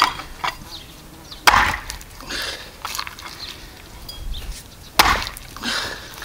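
Hatchet chopping into a pig's head on a wooden chopping stump: three sharp chops, one at the start, the loudest about a second and a half in and another about five seconds in, with smaller knocks and scraping between.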